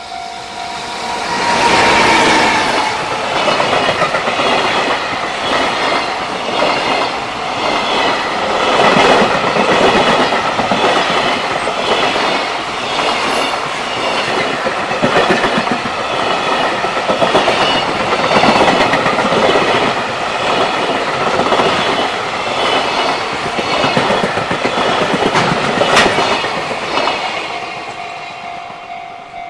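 A container freight train, hauled by a JR Freight EF210 electric locomotive, passing close by: a loud rumble of the wagons with a steady clickety-clack of wheels over rail joints. It swells as the locomotive comes past a second or two in and fades as the last wagons go by near the end.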